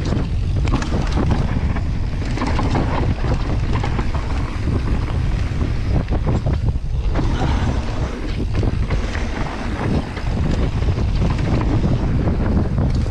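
Wind buffeting the microphone of a camera on a mountain bike riding fast down a dirt trail, over the steady rumble of knobby tyres on dirt, with scattered knocks and rattles from the bike over bumps.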